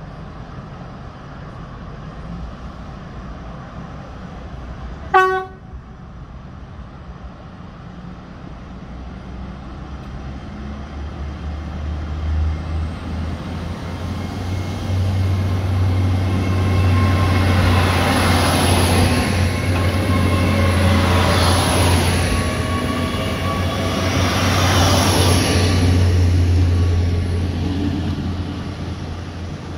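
A GWR Class 802 bi-mode train gives one short toot on its horn and then pulls away from the platform under diesel power. Its engines and wheels build into a steady low rumble, loudest as the coaches pass close by, with a few swells and a faint high whine.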